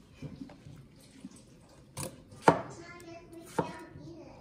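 Kitchen knife chopping through watermelon on a cutting board: three sharp chops about two, two and a half, and three and a half seconds in, the middle one loudest.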